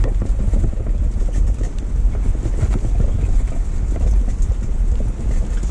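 Steady low rumble and hiss, with a few faint ticks.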